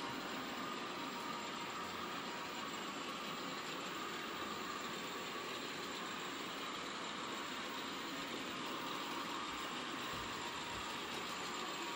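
Sound decoders in two N scale Class 50 model diesel locomotives playing diesel engine running sounds through their small speakers: a steady engine drone with a constant high whine.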